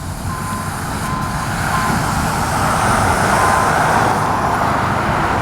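Semi-truck passing on the road, its tyre and engine noise swelling as it approaches, loudest about three and a half seconds in, then easing as it goes by; no horn sounds.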